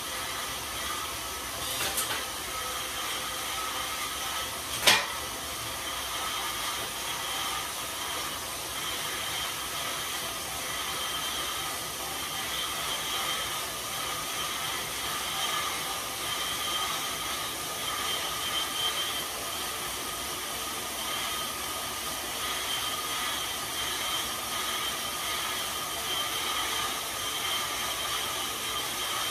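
Road bike tyres spinning hard on InsideRide rollers during a zone-five effort: a steady whir and hiss. Two sharp clicks come about two and five seconds in, the second the loudest.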